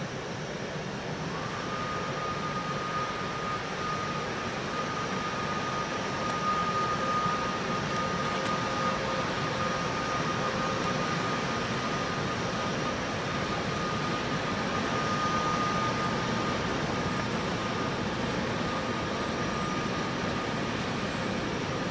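Red ÖBB electric locomotive moving slowly through the station: a steady running noise with a constant high whine that sets in about a second and a half in.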